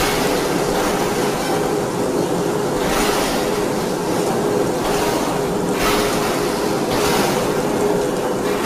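A D53K CNC radial-axial ring rolling mill running as it rolls a red-hot metal ring. It makes a steady mechanical rumble with a held hum, and several short hissing surges a second or two apart.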